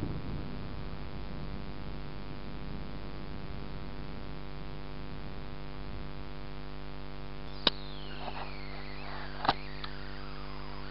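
A steady electrical hum made of many even tones, unchanging in pitch. Two sharp clicks come about two-thirds of the way in and near the end, each followed by thin tones that fall slowly in pitch.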